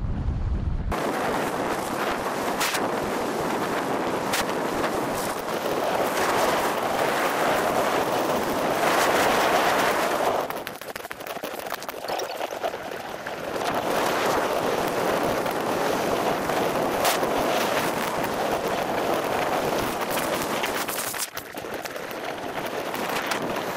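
Alpine skis running over packed snow: a steady scraping hiss with a few sharp clicks. It drops back about ten seconds in as the skier slows almost to a stop, then picks up again with speed.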